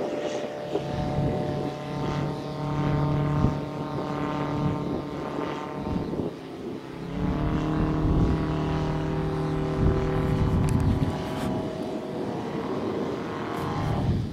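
Moki S215 five-cylinder radial engine of a large-scale RC Bücker Bü 133 Jungmeister biplane running in flight. It is throttled back about six seconds in and opened up again a second later.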